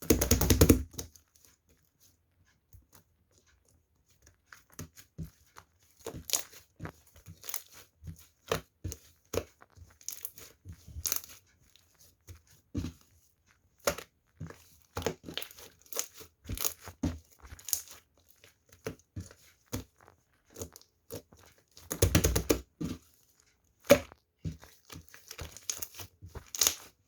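Homemade slime being squished and stretched by hand, giving irregular sticky crackles, pops and tearing sounds, with louder bursts of squishing near the start and about 22 seconds in.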